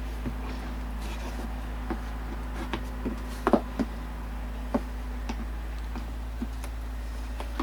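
Scattered clicks and knocks of a tool and hands working on a plastic HVAC heater box housing while its screws are being removed, over a steady low hum.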